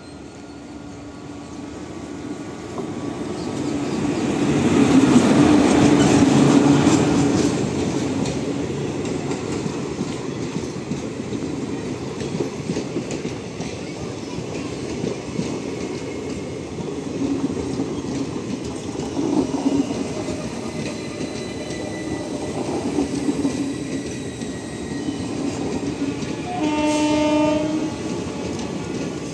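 An electric-hauled passenger express passing at speed: the rumble swells to its loudest as the locomotive goes by, then the coaches roll past with a steady rumble of wheels on rail. A short horn sounds near the end.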